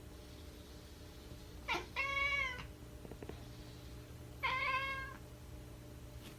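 A domestic cat meowing twice, two short calls about two and a half seconds apart.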